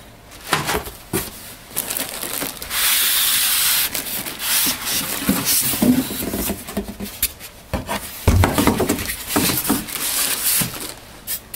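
Polystyrene foam packing blocks rubbing and scraping against a cardboard box, with a plastic bag rustling, as a packed document scanner is pulled out. Scattered knocks and one heavy thump about eight seconds in as it lands on the desk.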